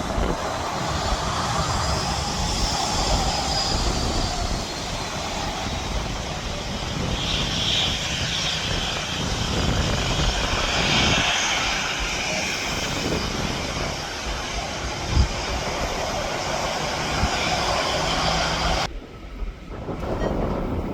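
Aircraft engines running, a steady rush with a faint high whine that wavers in pitch, over wind buffeting the microphone. About nineteen seconds in, the high part of the sound drops away suddenly.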